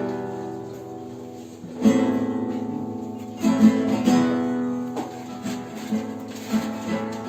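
Instrumental introduction to a chanson on acoustic guitar: chords struck and left to ring, stronger ones at the start, about two seconds in and about three and a half seconds in, then lighter, quicker strokes.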